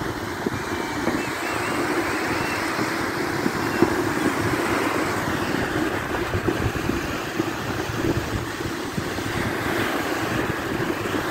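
Wind blowing across the microphone: a steady rushing noise with dense low rumbling buffets.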